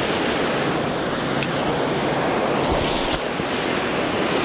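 Sea surf breaking and washing over a rocky shoreline, a steady rushing noise, with a few sharp clicks in the middle.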